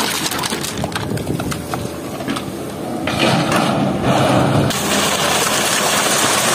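Excavator's diesel engine running while wet river stones knock and clatter. About two thirds of the way through, a steady rush sets in as stones and water pour from the bucket into a steel dump-truck bed.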